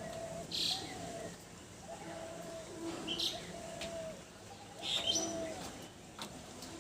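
Ringneck parrot chirping: three short, high calls, about a second, three seconds and five seconds in. Under them run repeated lower, drawn-out cooing notes.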